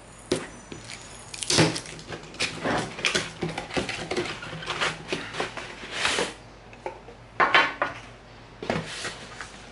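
Cardboard retail box being opened by hand: a tab pried loose, the lid flaps pulled apart and the inner cardboard tray slid out, giving a run of irregular scrapes, rustles and knocks.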